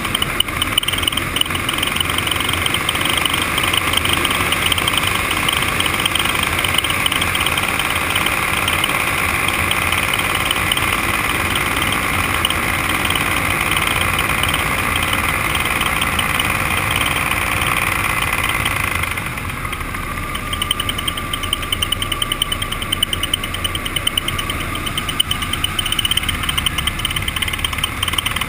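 Paramotor's two-stroke engine and propeller running steadily in flight. About two-thirds of the way through, the sound turns quieter and duller for several seconds, then rises again at the very end.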